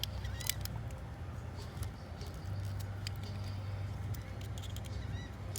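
Small scattered clicks and a few faint squeaks of plastic as a wire terminal is worked out of the TIPM's multi-pin connector, over a steady low hum.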